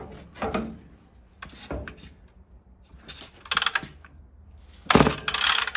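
Ported McCulloch Pro Mac 850 chainsaw pulled over on its recoil starter rope four times, the last pull the loudest. The engine turns over against heavy compression and does not fire, as the tank holds no fuel.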